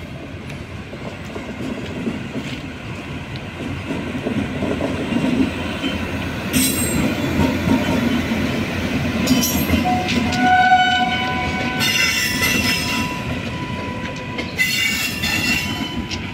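Indian Railways WAP-7 electric locomotive and its passenger coaches rolling past close by, a rumble of wheels on rail that grows louder. Several short bursts of high-pitched wheel squeal cut in over it.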